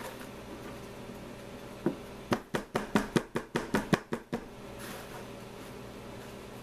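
Quick series of about a dozen light taps on a plastic egg mold packed with moist sugar, upturned on a cardboard cake round, knocking the sugar loose before lifting the mold. The taps come about two seconds in and stop after a couple of seconds.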